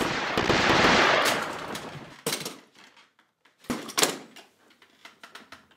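Gunfire in a shootout: a dense burst of shots over the first couple of seconds that dies away, then two sharp single bangs, one a little past two seconds in and one about four seconds in.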